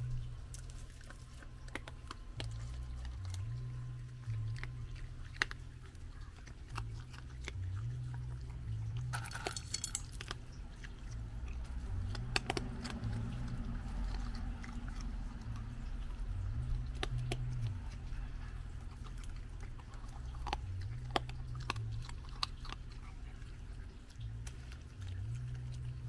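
A raccoon chewing and crunching dry kibble, with irregular sharp crunches and clicks. A low, repeated two-part call sounds every few seconds underneath.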